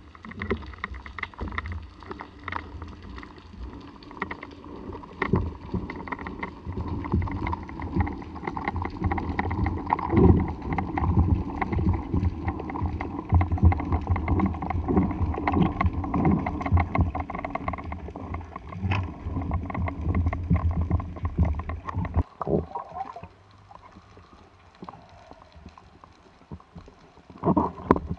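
Muffled underwater noise recorded in a camera housing on a speargun: a low rumble of moving water with many short knocks and clicks from the gun and gear being handled. It drops much quieter about 22 seconds in, then a few louder knocks come near the end.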